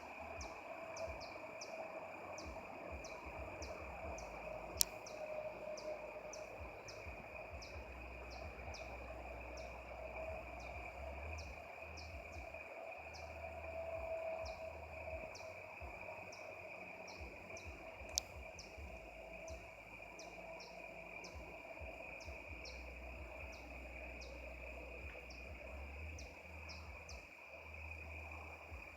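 Insects chirping: a steady high insect drone with a regular chirp repeating about one and a half times a second, over a faint wavering hum and low rumble. Two sharp clicks, about five seconds in and near eighteen seconds.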